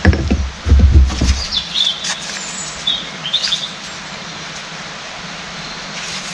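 A few dull, heavy thumps in the first second and a half, then a small bird chirps twice over a steady background hiss.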